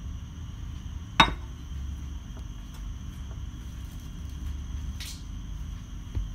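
A baking dish set down on a granite countertop with one sharp clack about a second in, over a low steady room hum. A brief soft scrape follows about five seconds in.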